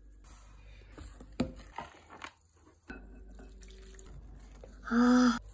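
Faint taps of a mesh sieve sifting cocoa and sugar over a glass bowl, then soft wet sounds of a wooden spoon stirring melted chocolate in the bowl. Near the end comes a short, louder pitched sound.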